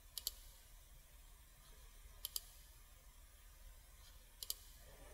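Computer mouse clicking: three quick pairs of clicks about two seconds apart, with near silence between.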